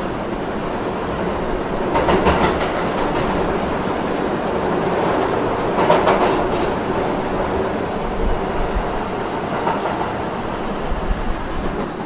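Train running along the track, a steady rumble of wheels on rails with clacks over rail joints every few seconds.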